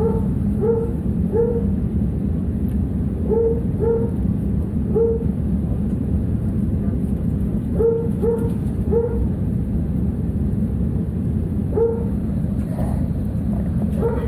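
A dog in the aircraft's cargo hold barking repeatedly, heard from the passenger cabin, in bursts of about three barks every few seconds. Beneath it runs the steady low rumble of the airliner's cabin.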